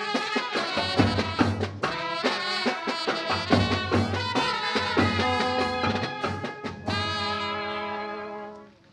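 Brass band music with a steady drum beat, fading out near the end.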